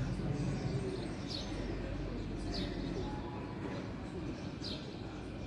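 Small birds chirping: short, high chirps a second or so apart, over a steady low background rumble.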